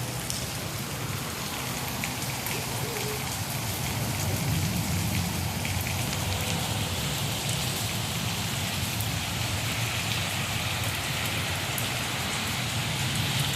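Steady rain falling and pattering on surfaces, with a few faint drop ticks.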